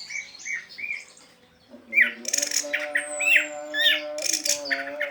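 Orange-headed thrush (anis merah) singing in the 'teler' style: a quick run of short chirps and down-slurred whistles mixed with harsh rasping notes. It dips quieter about a second in, then comes back louder from about two seconds in.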